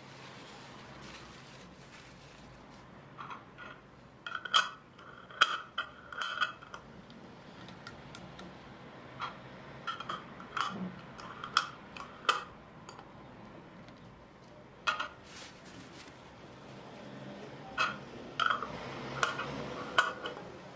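Metal twist-off lids being screwed tightly onto glass jars: short runs of clicks and scrapes as each lid turns on the jar threads.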